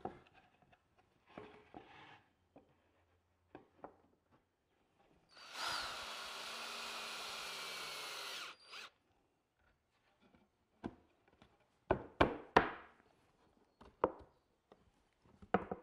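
Power drill/driver running steadily for about three seconds, driving a screw through a pre-drilled, countersunk hole to fasten the cabinet parts. Later come several loud, sharp knocks close together.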